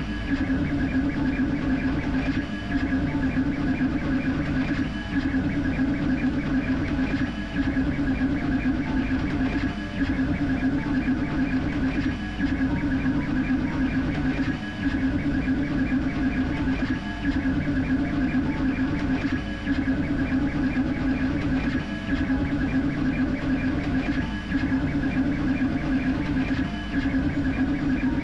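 Creality K1C 3D printer printing at high speed: a steady whine from its motors as the print head sweeps rapidly back and forth, dipping briefly about every two and a half seconds.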